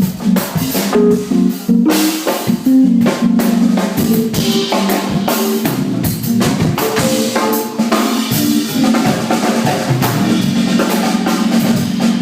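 Live band jamming: a drum kit playing a busy groove, with kick, snare and cymbal hits over pitched instrument notes.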